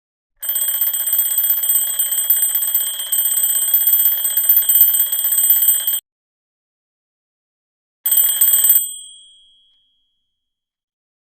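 Alarm clock ringing: a fast, rattling high ring for about five and a half seconds, a pause, then a short burst of under a second whose ringing dies away after it stops.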